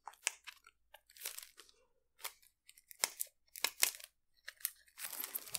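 Cellophane wrapper being picked at and torn off a new deck of playing cards: a run of short crinkling crackles that grows dense near the end.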